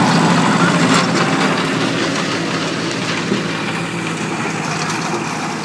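Kubota L4018 tractor's three-cylinder diesel engine running steadily under load, driving a rotary tiller whose blades churn through soil and weeds. The sound eases slightly in level over the few seconds.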